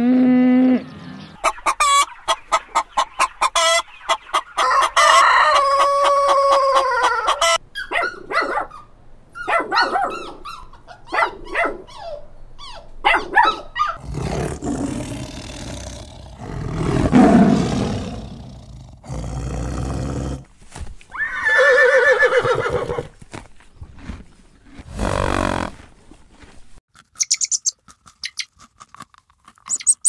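A string of different animal calls one after another. A cow's moo trails off at the start, a rooster crows a few seconds in, and a tiger gives a long, rough growl around the middle, with more short calls between them and high short calls near the end.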